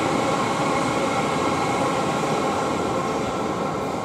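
A pair of Class 450 Siemens Desiro electric multiple units passing: a steady running noise of wheels on rail with faint whining tones, easing off slowly near the end as the train draws away.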